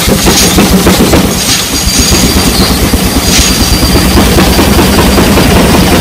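Steam traction engine running under load while belted to a sawmill: a loud, fast, even working beat over a steady low hum. A thin high whine comes and goes.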